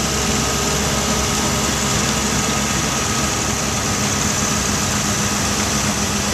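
Doosan amphibious excavator's diesel engine running at a steady speed, an even hum with no change or sudden sounds.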